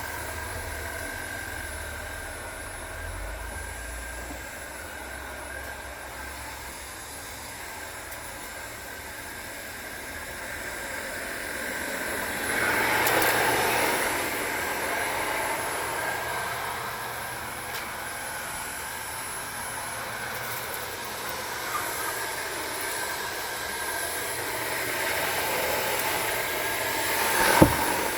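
Hoover WindTunnel Air Pro upright vacuum cleaner running steadily with a motor whine while cleaning, louder for a couple of seconds about halfway through. A short sharp knock near the end.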